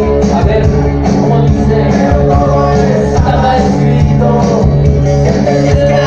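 Loud dance music played over a sonidero's sound system, with heavy bass and a steady drum beat.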